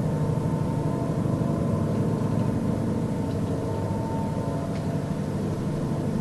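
A low, steady droning hum made of several held tones, with no break. Its source is unknown; the person who recorded it says it sounds like an airplane but went on for hours without stopping.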